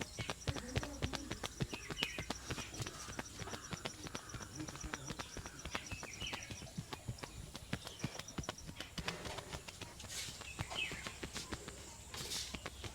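Hands tapping and slapping on a head and scalp during a head massage, a fast, uneven run of short sharp pats.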